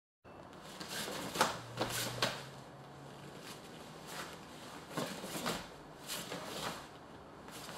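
Sounds of two karateka working a partner drill in gi: a series of short, sharp swishes, slaps and thuds from the cotton gi snapping, hands meeting arms and bare feet on the mats, about eight in all, the sharpest about a second and a half in.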